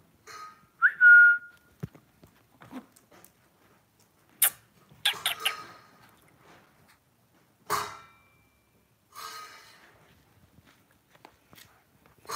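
A single short whistle about a second in, rising quickly and then held briefly, as a call to a dog. It is followed by scattered short taps and clicks.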